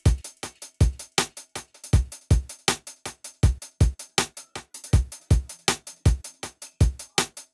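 Background music with a steady electronic drum-machine beat: regular kick-drum hits with lighter hi-hat ticks between.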